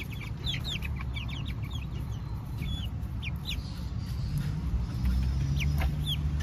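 Young chickens cheeping: a quick scatter of short, high, downward-sliding peeps, busiest in the first few seconds and thinning out after, over a low steady hum.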